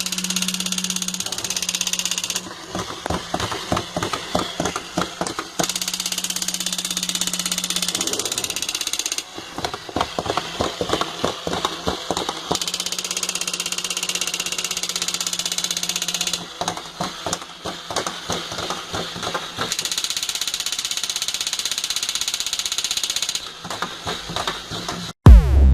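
A battery-powered crawling toy soldier's plastic gear mechanism clicking and whirring rapidly as it crawls. A steady low hum and a hiss come and go every few seconds.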